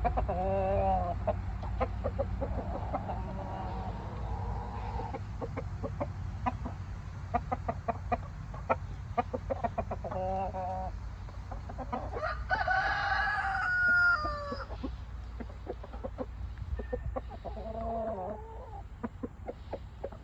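Chickens clucking with a few short calls, and a rooster crowing once about two-thirds of the way through, the loudest sound. Many short clicks and taps run throughout over a steady low hum.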